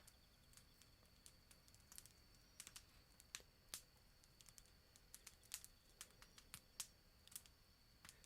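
Faint crackling of a burning wood fire: irregular sharp snaps and pops, a few each second, over a faint steady high hiss.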